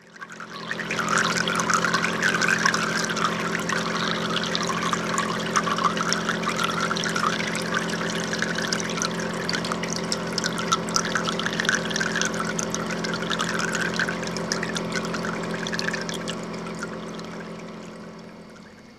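Water trickling and splashing as it cascades down through the tiers of plastic-bottle planters of an aquaponics sculpture into the fish tank below, over a steady low hum. It fades in at the start and dies away over the last few seconds.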